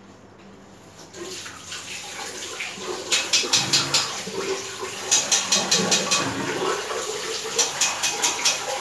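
Water running into a bathroom basin while hands wash and splash in it. Starting about three seconds in, quick splashes come in three short runs, about four or five a second, over the steady rush of the water.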